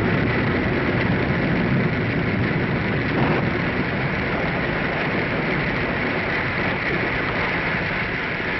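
Storm sound effect for a radio drama: a steady, loud rush of wind and rain that slowly eases.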